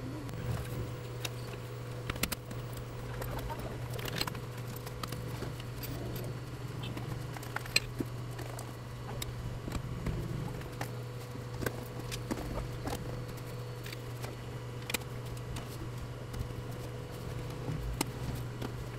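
Scattered light clicks, taps and scratches of hands and a thin metal tool handling an LCD TV panel and its frame, the loudest click about eight seconds in, over a steady low hum.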